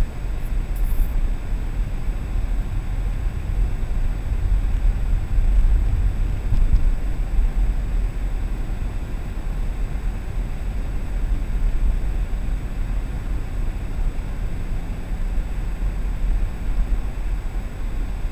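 Steady low rumble of a car driving at low speed, heard from inside the cabin through a dashcam: engine and tyre noise on the road.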